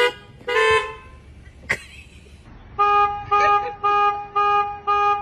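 Car horn honking: one short honk under a second in, a sharp knock a second later, then from about three seconds in a run of short horn blasts, about two a second.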